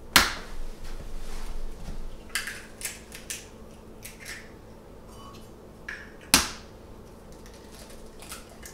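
Two eggs cracked open over a glass mixing bowl: one sharp knock of shell right at the start and another about six seconds in, with light clicks and taps of shell in between.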